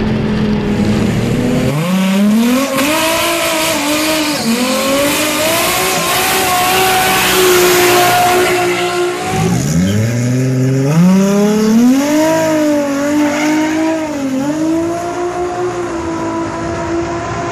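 Toyota 1JZ turbocharged straight-six engine revved hard and held wavering at high revs with tyres screeching in a burnout. The revs drop off sharply about nine seconds in, then sweep up again and hold high a second time. A steady in-car engine drone comes before the first rev-up.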